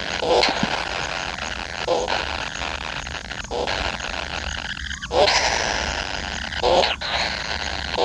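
Kingfisher nestlings calling in their burrow nest: a continuous harsh, rasping begging chorus, with a louder, lower call breaking through every second or two.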